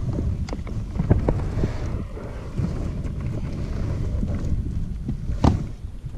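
Wind buffeting the microphone in a steady low rumble, with a few scattered knocks and taps; the sharpest comes about five and a half seconds in.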